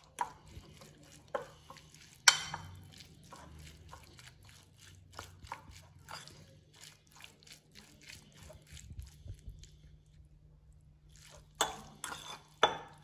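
Metal fork stirring raw chicken strips in a soy sauce and spice marinade in a glass bowl: wet squelching and scraping with sharp clinks of fork on glass, the loudest about two seconds in and twice near the end, after a short pause.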